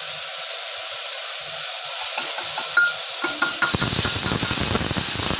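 Brown rice being stirred and tossed with a metal spoon into sizzling vegetables in a hot pan: a steady sizzle, a few clinks of the spoon on the pan about three seconds in, then louder scraping and stirring.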